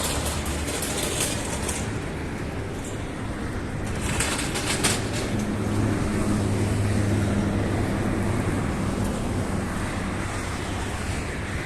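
Street traffic noise, with a vehicle engine's low steady hum growing louder and passing in the middle, and a short hiss just before it.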